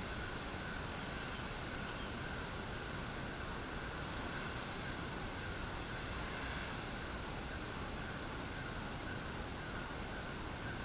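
Light rain falling steadily, an even hiss, with a continuous high-pitched insect trill over it.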